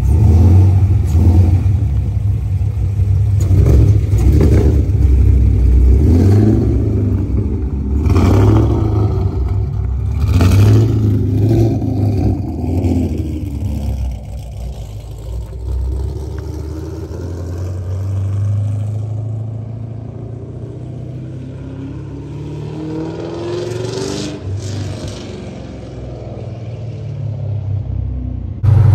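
2018 Chevrolet Camaro's naturally aspirated V8 running and revving as the car pulls away, with several loud surges at first, then fading with distance. Near the end a rising rev is heard farther off.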